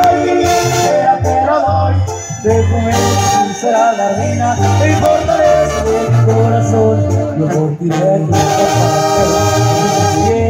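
Live regional Mexican band music played loud over a concert PA, heard from the crowd: a melody over a pulsing bass line, with no break.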